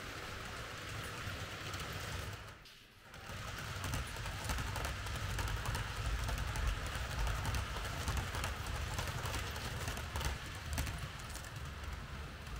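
Märklin H0 model trains running on the layout: a steady low rumble with fine, rapid clicking and rattling on the track. It drops away briefly about two and a half seconds in, then comes back louder.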